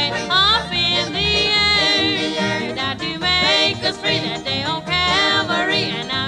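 Music with a steady bass beat and a melody line that slides up and down in pitch.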